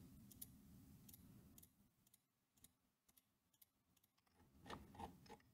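Near silence with a few faint computer mouse clicks, spread out and then a small cluster near the end, as points are placed along a spline.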